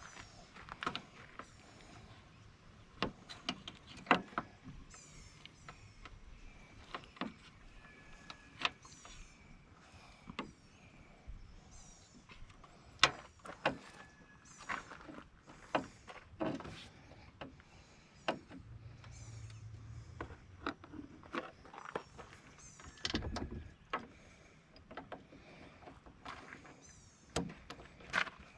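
Scattered clicks and knocks of hand tools and metal latch parts being handled while new aluminum hood latches are fitted to a Jeep JK. Faint short high chirps come and go behind them.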